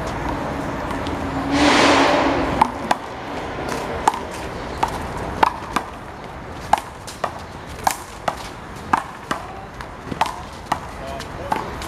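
Rubber handball rally: a rapid series of sharp slaps as the ball is struck by hand, hits the wall and bounces on the pavement, roughly one or two a second. About two seconds in, a loud hiss lasts about a second and a half.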